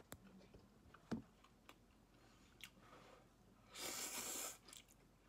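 A person slurping saimin noodles off chopsticks: one loud slurp lasting about a second, a little before four seconds in, after a few faint clicks.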